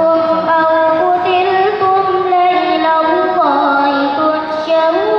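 A woman's voice chanting Quran recitation in a melodic tajwid style, holding long drawn-out notes with slow ornamented turns in pitch, a quick rising turn about three and a half seconds in.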